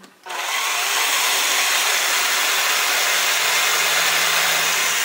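A steady, loud whooshing machine noise, like rushing air from a motor, starting abruptly a moment in and running evenly throughout, with a faint low hum underneath.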